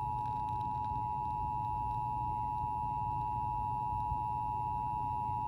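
Emergency Alert System two-tone attention signal: two steady sine tones sounding together just under 1 kHz, held without a break, over a low background hum. It is the alarm that heralds a spoken emergency warning, here a severe thunderstorm warning.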